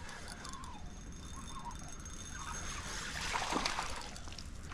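River water running steadily, with a few faint splashes about three and a half seconds in.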